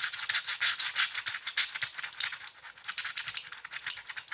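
Scratch-off ticket coating being rubbed off with a vitamin tablet: rapid, rasping back-and-forth strokes, dense and strong at first and lighter after about two and a half seconds.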